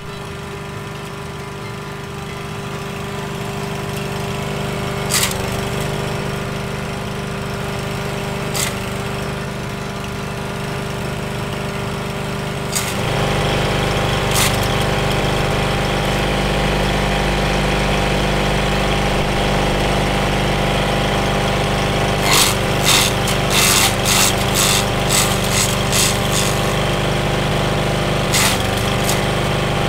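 Petrol walk-behind mulching mower's engine running steadily while a small tree is fed into its chipper chute, with sharp cracks now and then. About halfway through the running gets louder and deeper, and near the end a quick run of cracking clatter comes as the branch is chipped.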